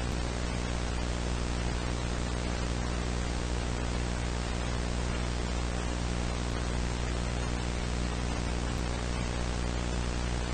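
Steady static hiss over a low electrical hum with many overtones, unchanging throughout.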